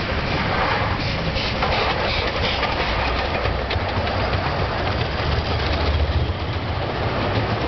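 Miniature 15-inch-gauge steam train passing close by, its open passenger cars rolling past with a steady low rumble and clicks from the wheels over the rails.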